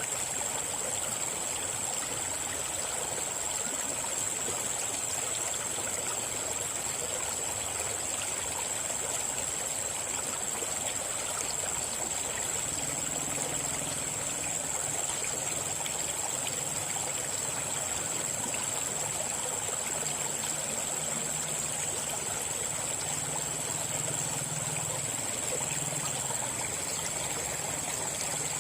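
River water flowing and babbling steadily, with a steady high-pitched whine above it. A faint low hum comes and goes from about halfway through.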